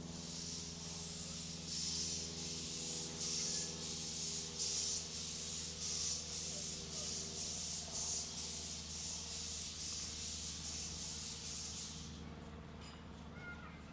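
Steam engine exhausting in even, hissing puffs about twice a second, which die away about twelve seconds in, over a steady low hum.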